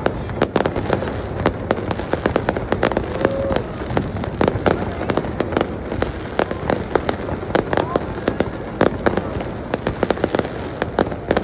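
Fireworks display going off: a dense, continuous run of sharp bangs and crackles, many each second, with no pause.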